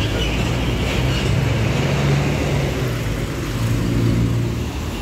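Intercity coach's diesel engine running as the bus drives past close by and pulls away, a steady low engine drone over road noise.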